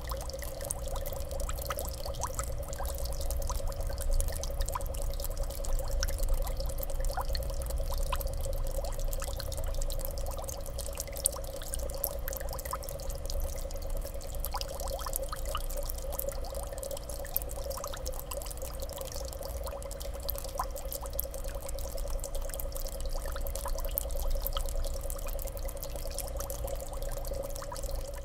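Saltwater reef aquarium's circulating water: a steady trickling and splashing with many small crackles, over a steady hum.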